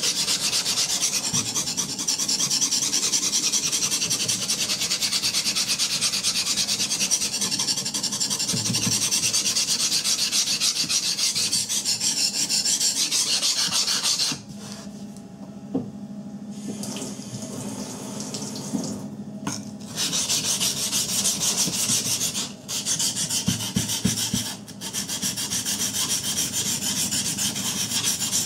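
Steel knife blade rubbed rapidly back and forth on a wet waterstone, a steady scraping as the edge bevel is reprofiled toward the tip. The strokes stop for about six seconds around the middle, then resume with two short breaks.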